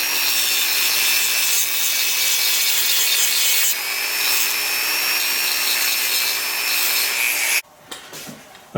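MIG welder arc running steadily as metal is built up on a worn steel doorknob shaft, with a short break about halfway through. It cuts off suddenly near the end.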